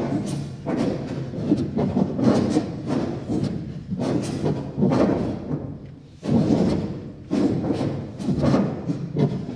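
Performers' breath sounds and thuds in an uneven rhythm, several noisy strokes a second. They fade off about five and a half seconds in and start again sharply at about six seconds.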